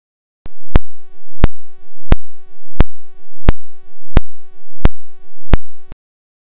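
A loud electronic tone pulsing eight times at an even pace of about one and a half pulses a second, with a sharp click at each pulse. It starts suddenly about half a second in and cuts off abruptly near the end.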